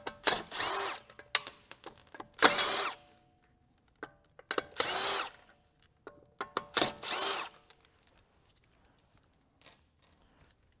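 Cordless impact wrench spinning out already-loosened wheel bolts, in four short bursts each under a second.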